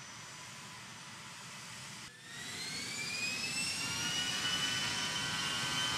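A-10 Thunderbolt II's twin TF34 turbofan engines running with a high whine over a rushing hiss. After a brief dip about two seconds in, the whine rises in pitch and grows louder as the engines spool up, then holds steady.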